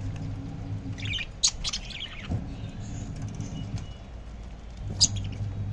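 Caged pet parrots, budgerigars with a cockatiel among them, give a cluster of short high chirps between one and two seconds in. A sharp click follows about five seconds in.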